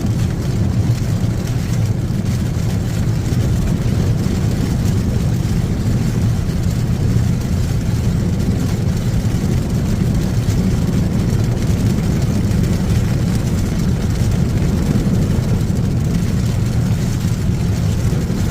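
Steady low rumble of a vehicle, unchanging throughout.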